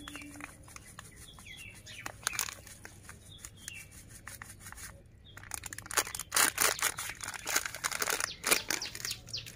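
Small birds chirping now and then, and from about six seconds in a spell of dense rustling and crinkling as a plastic packet of detergent powder is handled and shaken over a metal bucket of water.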